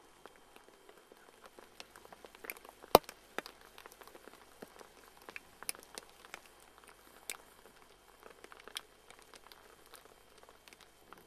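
Scattered raindrops of a summer storm: light, irregular taps, with one sharper tap about three seconds in.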